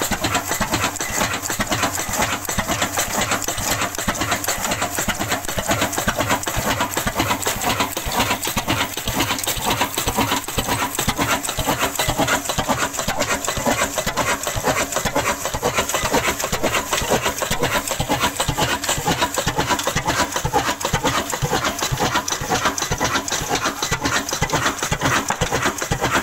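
Ruston-type single-cylinder desi diesel engine running steadily under the sawmill, a rapid, even mechanical clatter that holds the same level throughout.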